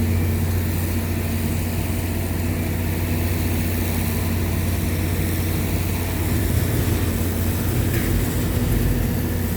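Skid steer loader's engine running steadily with a low hum as the machine backs up.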